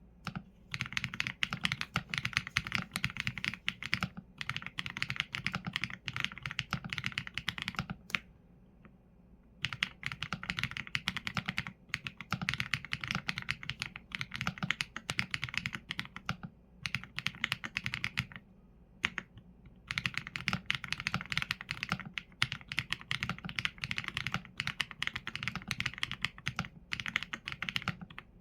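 Continuous typing on a Qsenn A75 mechanical keyboard with Leobog Graywood V4 linear switches and PBT keycaps: rapid runs of keystrokes broken by a few short pauses, the longest about eight seconds in.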